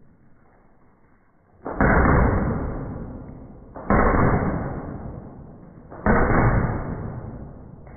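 Three paintball gun shots about two seconds apart, each a sharp crack followed by a long fading rush.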